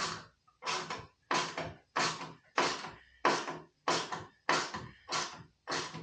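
Steady rhythmic scraping strokes, about three every two seconds, each a short rasp of even length, like a tool worked back and forth by hand.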